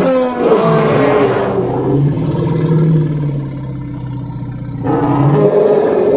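Woolly mammoth sound effect: a long, low animal call that falls in pitch and settles into a deep held rumble, followed about five seconds in by the start of a second loud call.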